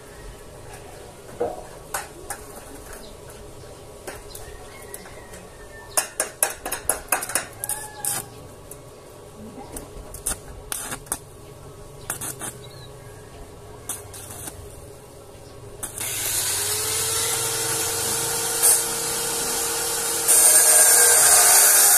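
Small clicks and taps of metal parts being handled, then about 16 seconds in a corded electric drill starts and runs with a steady whine, louder from about 20 seconds in.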